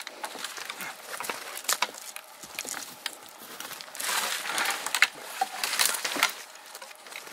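Twigs, dead branches and undergrowth crackling and rustling as a dead bull elk is dragged by its antlers over the forest floor, with louder bursts of brush noise about four and six seconds in.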